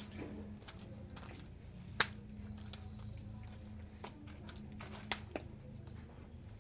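Quiet handling noise as someone moves among hanging orchid baskets: a sharp click about two seconds in and a few lighter taps later, over a steady low hum.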